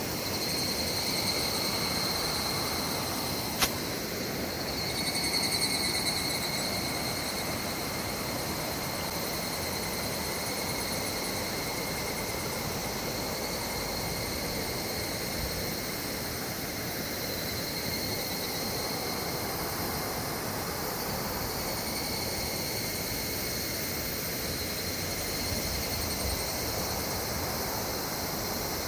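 Flowing river water under a steady, high-pitched insect chorus that swells and fades a few times. A single sharp click about three and a half seconds in.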